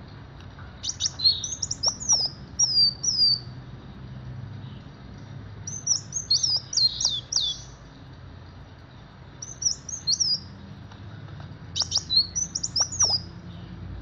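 Kolibri wulung sunbird singing in four bursts of high, rapid chirps and downward-slurred notes, each burst lasting one to two seconds with short pauses between them.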